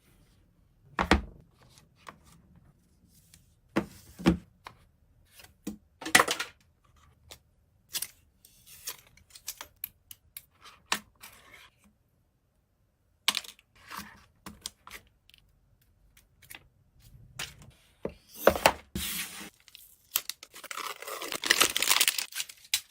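Phone-box packaging being handled and opened: scattered short taps, scrapes and rustles, then a longer stretch of tearing near the end.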